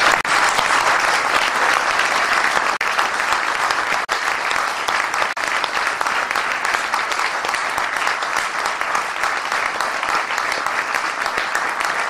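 Audience applauding: many hands clapping in a dense, steady patter that carries on without a break.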